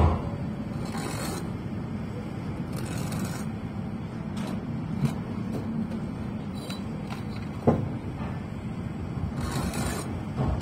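Building-site background: a steady low hum, a few short scrapes and one sharp knock about three-quarters of the way through, from bricklaying work on the scaffold.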